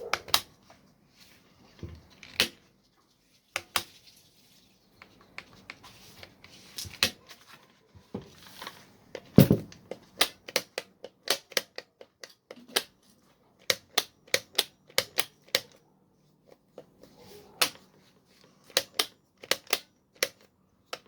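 Sharp plastic clicks of an angle grinder's trigger switch being pressed and released by hand over and over, testing whether the stretched-spring repair has cured its sticking; from about ten seconds in they come two to three a second. A heavier knock about nine seconds in is the loudest sound.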